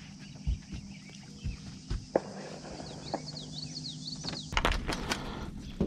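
Scattered knocks and clatter of gear being handled in a boat, with a louder flurry of knocks about three-quarters of the way through, over a steady low hum. A quick series of short high chirps comes a little before the middle.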